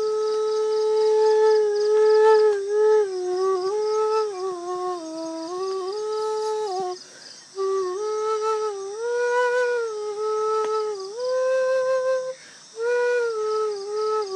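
A bamboo transverse flute played solo: a slow melody of long held notes that slide and bend between pitches. The playing breaks off briefly twice for breath, about halfway through and again near the end.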